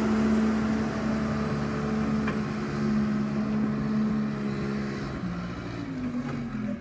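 John Deere 310 backhoe engine running at working speed, its note dipping and shifting a little about five seconds in as the throttle changes.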